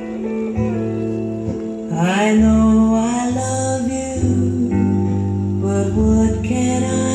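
A song with guitar and singing, played back through a Scott 355R stereo receiver and its speakers.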